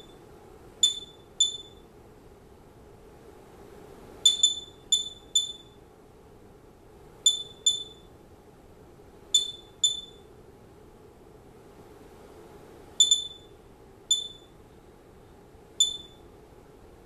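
Geiger counter beeping: about a dozen short, high-pitched chirps at irregular, random intervals, sometimes two close together. Each chirp is one detected count from the radioactive kitchen-dust sample, at roughly 45 counts per minute.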